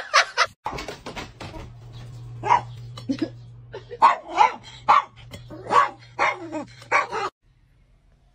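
A small dog barking repeatedly in short barks, about two a second, over a low steady hum. The barking cuts off abruptly near the end.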